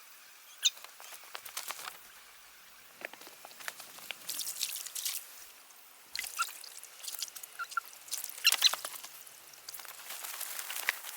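Irregular bursts of rustling and crackling made of many small clicks, with a few brief high chirps.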